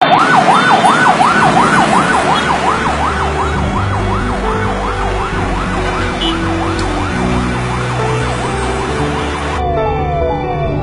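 Ambulance siren in a fast yelp, its pitch rising and falling about three times a second over traffic noise. Low held music notes join it a few seconds in. Near the end the street noise cuts off, leaving repeated falling tones with the music.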